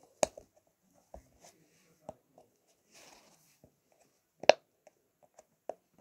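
Silicone pop-it fidget ball squeezed in the hand, its bubbles popping with scattered sharp pops, about five of them, the loudest a little past the middle.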